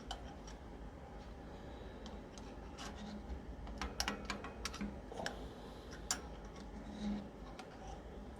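Loose steel ball bearings being poked out of a bicycle rear wheel hub, clicking against the metal hub in a scattered series of light clicks.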